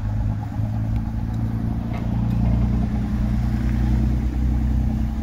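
An engine running steadily at low revs, an even low hum that comes in at the start.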